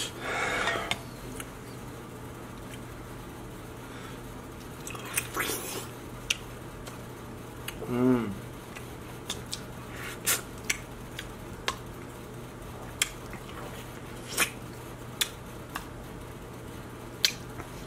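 Close-miked eating sounds of a person biting and chewing corn on the cob: scattered wet smacks and sharp mouth clicks, with a short falling hum about eight seconds in.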